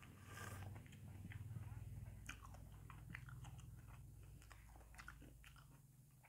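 Faint chewing and small wet mouth clicks of someone eating soft ripe jackfruit flesh, with fingers pulling the sticky pods apart.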